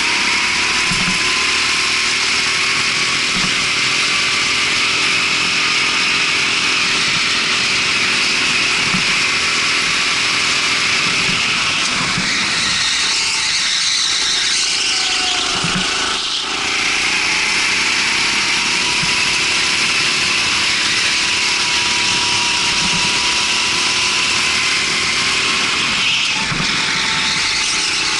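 Rental go-kart engine running hard, its pitch slowly rising and falling with the throttle under a steady rushing noise. It eases off briefly about halfway through, then picks up again.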